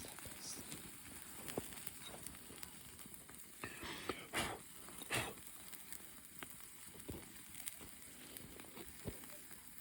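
Fire crackling faintly, with scattered sharp pops and a few louder crackles about four to five seconds in.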